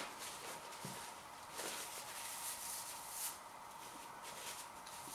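Kitchen paper towel rustling and crinkling in a few short bursts as hands are wiped with it, with a soft knock about a second in.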